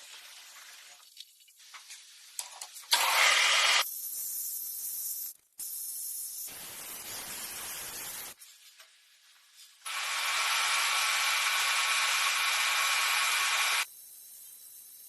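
Hissing noise in several stretches that start and stop abruptly, loudest about three seconds in and again from about ten to fourteen seconds.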